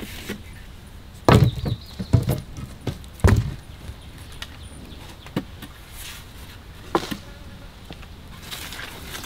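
Wooden poles knocking as a stick shelter frame is worked on: three heavy thumps about a second apart, then lighter scattered knocks and clicks.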